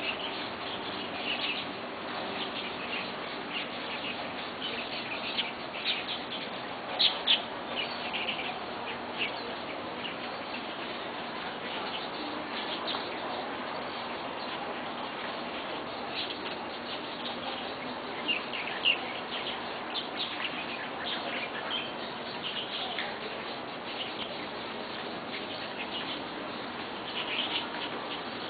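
Birds chirping and calling in short, repeated notes scattered throughout, over a steady background of insect sound.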